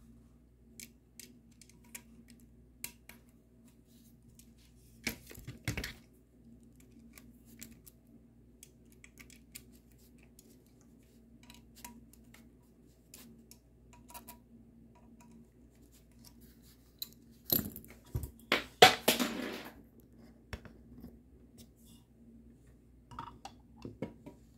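Light clicks and taps of small screws and a screwdriver being worked on an airsoft rifle's handguard, with a louder spell of clattering and scraping about five seconds in and another, the loudest, around eighteen to twenty seconds in.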